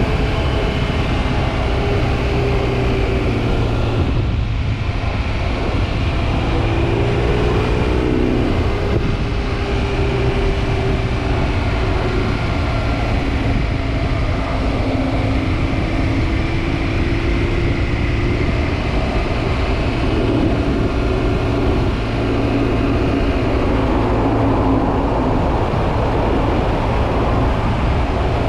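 BMW R1200GS Adventure's boxer-twin engine running through a Dominator aftermarket exhaust with the dB killer removed, while the bike is ridden. The engine note drops briefly about four seconds in, then climbs again and carries on with small rises and falls in pitch.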